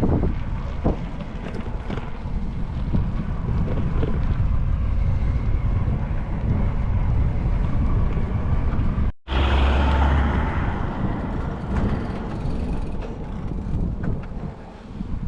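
Wind buffeting the microphone while cycling: a steady low rumble, cut off for an instant about nine seconds in.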